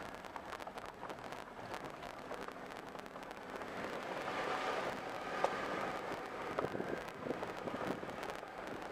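Four-wheel-drive vehicle driving on a rough mountain trail: a steady rumble of tyres on rock and gravel with many small knocks and rattles, growing louder about four seconds in.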